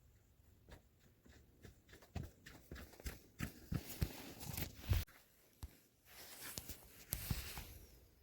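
Footsteps: a quickening run of soft thumps and knocks, then about a second and a half of rustling.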